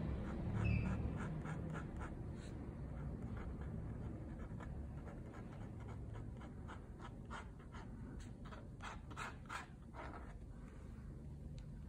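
Steel dip-pen nib scratching on paper in a run of short, quick strokes, laying down ink hatching. The strokes come closest together near the end.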